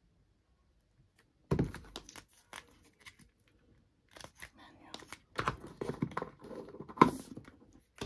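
Paper and cardboard packaging being handled: the card sleeve slid out of a MacBook box's moulded inner tray, with rustling, scraping and light knocks. It starts suddenly about a second and a half in, and the loudest knock comes near the end.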